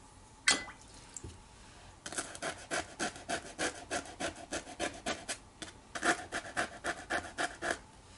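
Small paintbrush scrubbing quickly back and forth on watercolour paper, about four or five strokes a second with a short break near the middle. A single sharp click sounds about half a second in.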